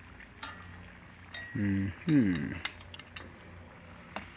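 Metal tongs clinking a few times against a stainless-steel pan of bubbling liquid nitrogen. Midway there is a short low vocal grunt that holds and then falls in pitch.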